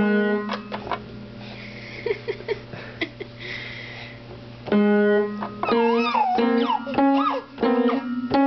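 Upright piano keys struck at random by a baby's hands: clusters of notes hit at the start and again about five seconds in, ringing and dying away in between. A high voice glides up and down over the notes near the end.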